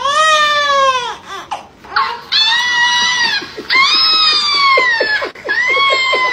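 Baby crying: four long wailing cries, each falling in pitch at its end, with short gasps between them.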